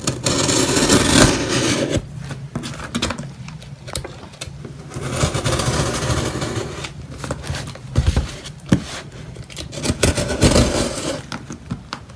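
Cardboard shipping box being opened by hand: several long stretches of scraping and rustling as the box is worked open, with sharp knocks and clicks in between.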